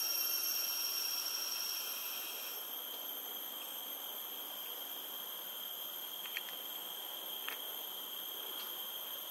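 Forest insect chorus: several steady, high-pitched insect drones overlapping, one of them stopping about two and a half seconds in. Two faint clicks in the second half.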